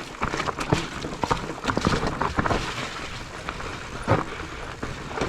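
Mountain bike riding a rough forest trail: tyres rolling over dirt and roots with a continuous rumble, broken by many irregular knocks and rattles from the bike, loudest about four seconds in.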